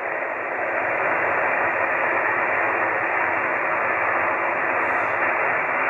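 Shortwave transceiver receiving upper-sideband on the 15-metre band with no station coming through: a steady hiss of band noise, cut off sharply above the voice range by the receiver's narrow filter.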